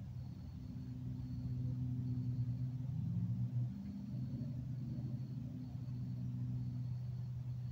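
A low, steady engine hum from some vehicle, growing a little louder around the middle. A faint, high, on-and-off tone sits behind it.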